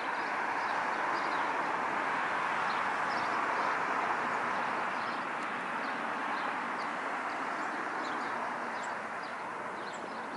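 Boeing 737-800 jet engines running as the airliner rolls along the runway, a broad rushing sound that swells to its loudest about four seconds in and then slowly fades. Small birds chirp repeatedly over it.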